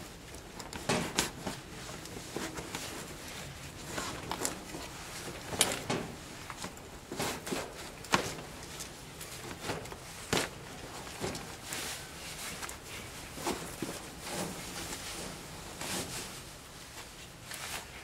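Gloved hands pulling open a felt insulation jacket and plastic sheeting around an air-conditioner compressor: irregular rustling and scraping, with scattered sharp knocks and clicks.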